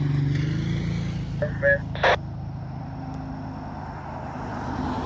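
A vehicle engine running with a steady low hum, with a few short beeps about a second and a half in and a sharp burst of noise just after.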